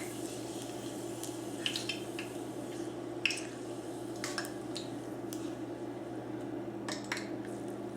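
Thin bacon-potato chips deep-frying in hot oil: scattered sharp crackles and pops over a steady low hum.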